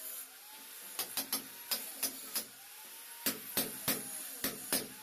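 Hand hammer striking a steel cold chisel, chipping into a brick wall: a run of sharp, irregular blows, pausing briefly near the start and again about two and a half seconds in.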